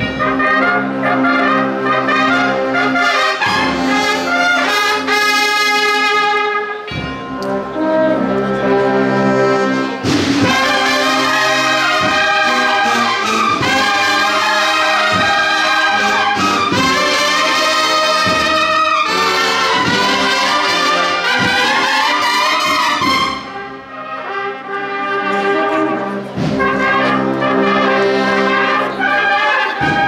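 A banda de cornetas y tambores playing a processional march: massed cornets sound held chords in harmony over drums. The music dips briefly about three-quarters of the way through.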